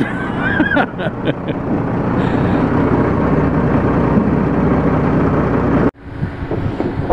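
John Deere 437E log loader's diesel engine and hydraulics running steadily under load as it loads logs onto a logging truck. The sound breaks off abruptly near the end, giving way to a lower, quieter engine hum.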